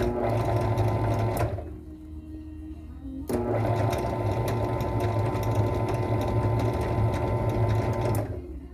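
Makita M2300 miter saw's electric motor switched on and run briefly, winding down about a second and a half in, then switched on again about three seconds in and run steadily for about five seconds before it is released. The saw's main shaft is bent at its thin tip.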